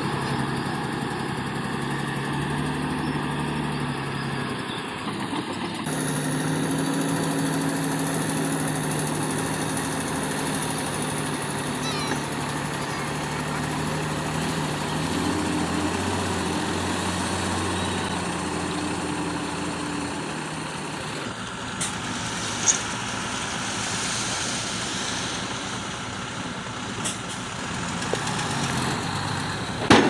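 Heavy diesel engines of a dump truck and a crawler bulldozer running steadily, with the engine note changing abruptly about six and twenty-one seconds in.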